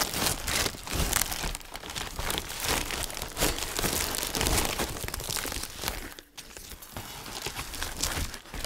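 Cardboard and paper packaging crinkling, crumpling and tearing as it is pulled open and off, with a short lull about six seconds in.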